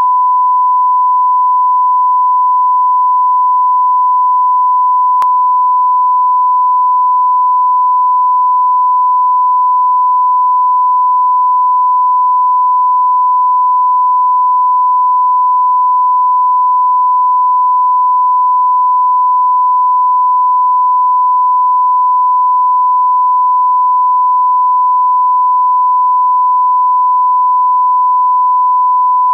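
Television test-card tone: one steady, pure beep held at a single unchanging pitch, with a very faint click about five seconds in.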